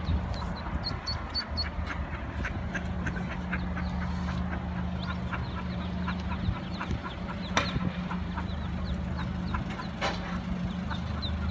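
Mallard ducklings peeping, many short high chirps repeating over and over as they follow the hen, over a steady low machine hum. Two sharp clicks stand out about two-thirds of the way through and near the end.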